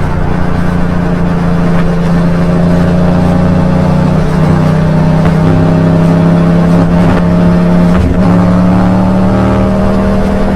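Yamaha MT-07's 689 cc parallel-twin engine running through an Arrow aftermarket exhaust, heard from on the bike while riding. The engine note climbs slowly under throttle, dips briefly about eight seconds in, then runs steady.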